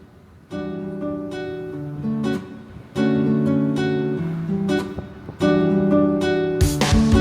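Background music: strummed acoustic guitar chords entering about half a second in, in short phrases, with drums coming in near the end.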